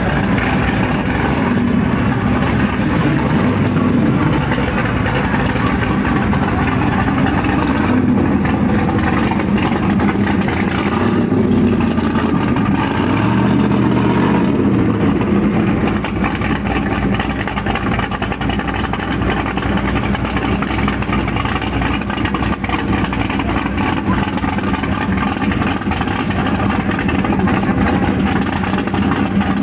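First-generation Chevrolet Camaro's engine idling with the choppy note of an aggressive camshaft as the car rolls slowly past. Its pitch rises and falls briefly a few times.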